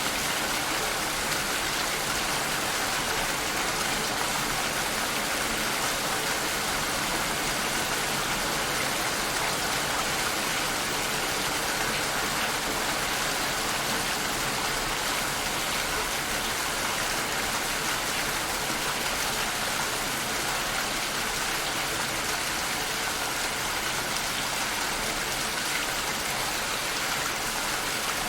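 Steady, even rain falling, a constant hiss of many drops with no distinct individual hits.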